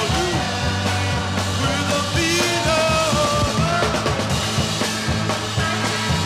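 Late-1960s rock band playing a full-band song with drums and bass keeping a steady beat. A pitched lead line slides between notes around the middle.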